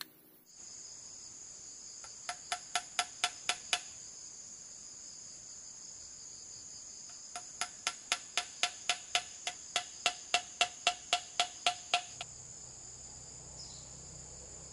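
Forest insects buzzing steadily at a high pitch. Twice over this, an animal gives a run of evenly spaced pulsed calls, about four a second: a short run of about seven, then a longer run of about twenty.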